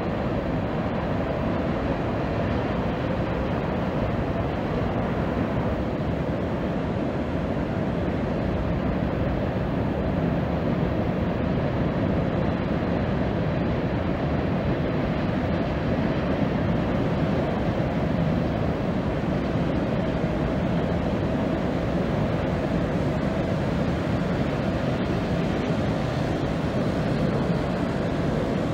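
Freight train cars rolling across a tall steel railroad trestle, a steady unbroken rumble of wheels on rail and bridge steel.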